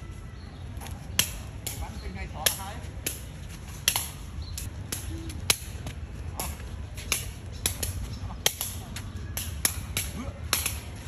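Shuttlecock being kicked back and forth with the feet: sharp, crisp clicks at irregular intervals, roughly one or two kicks a second, over a steady low rumble.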